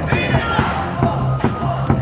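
Baseball stadium cheer song: amplified music with a steady drumbeat about twice a second, and the crowd singing along.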